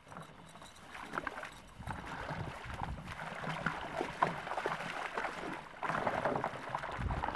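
Water splashing and sloshing as a person in chest waders and a dog wade through shallow marsh water, in irregular splashes that fade in over the first second or so.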